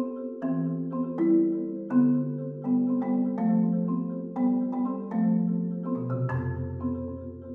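Marimba quartet playing with yarn mallets: long rolled notes in the low register, changing every second or two, under repeated struck chords higher up.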